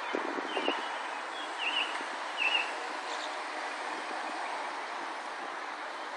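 Small birds chirping, a few short quick chirps in the first half, over a steady outdoor background hiss. A few soft knocks sound right at the start.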